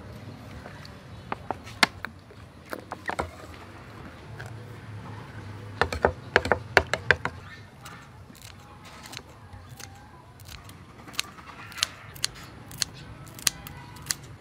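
Kitchen scissors snipping a fresh red chili into a bowl of sauce, with a metal spoon clinking against the ceramic bowl: a series of sharp clicks, densest about six to seven seconds in and again near the end.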